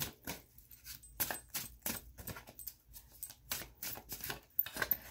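A deck of cards being shuffled by hand, with quick, irregular flicks and slaps as packets of cards are lifted and dropped against each other.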